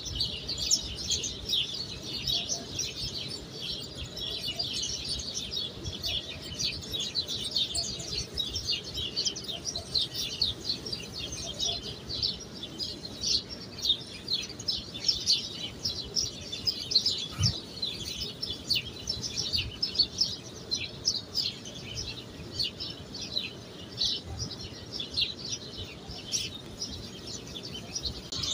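Many small birds chirping without a break, a dense chorus of quick, high chirps.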